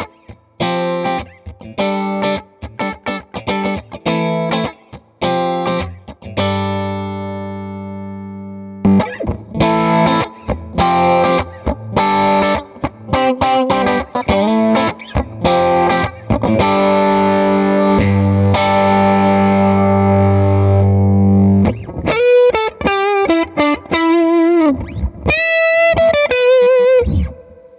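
Stratocaster electric guitar played through an amp with the Electra MPC-12 compressor module engaged, the compressor pushing the amp into a slightly driven tone. It opens with short choppy chord stabs, moves to ringing sustained chords, and ends with single-note lines with bends and vibrato.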